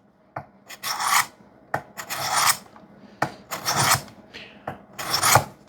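Hard 3V steel knife blade stroked across a sharpening stone on a guided sharpening system: a run of rasping swishes, about one a second with shorter scrapes between, as the edge is worked until the burr is gone and it slides smoothly.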